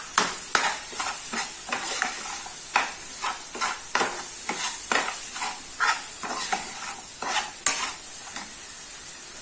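Metal spoon scraping and stirring thick masala paste in a frying pan, in quick irregular strokes about two or three a second, with the paste sizzling in the oil underneath.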